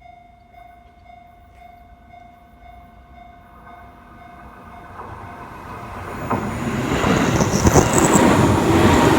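Level-crossing warning bell ringing in a steady pulse while a Seibu Tamagawa Line electric train approaches. The train's running noise grows from about four seconds in and is loud over the last three seconds as it reaches the crossing.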